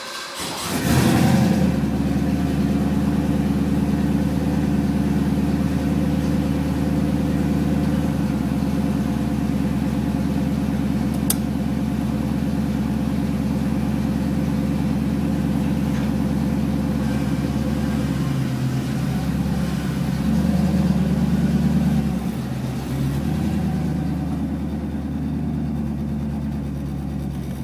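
1987 Ford Mustang GT's 5.0-litre V8 starting on a cold start about a second in, heard from inside the cabin, then idling steadily. Around twenty seconds in the engine note swells briefly, then settles lower and quieter.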